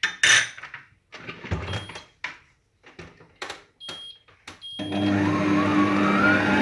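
Knocks and clatter as the stand mixer's head is lowered onto the steel bowl, with a few short beeps from its control panel. About five seconds in, the mixer's motor starts with a steady hum and a whine that rises as it speeds up, turning the dough hook to knead butter into the bread dough.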